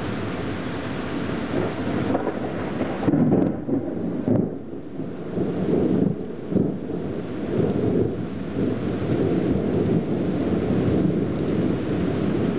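Rain falling steadily. About three seconds in, a long rolling rumble of thunder sets in, swelling in several louder peals.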